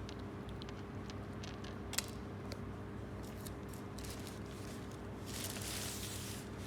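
Kitten crunching dry cat food: scattered small crunches and clicks, a sharper click about two seconds in, and a denser rustling crunch near the end.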